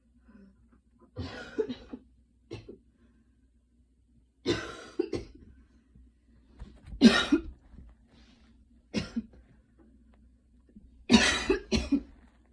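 A young woman coughing in about six short bouts, several of them two or three coughs in quick succession, the loudest near the middle and toward the end. It is a light cough brought on by a hard run.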